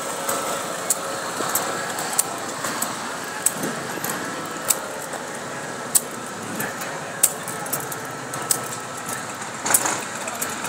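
Busy outdoor street background with a sharp click about every second and a quarter, keeping time with the stride of the person walking with the camera.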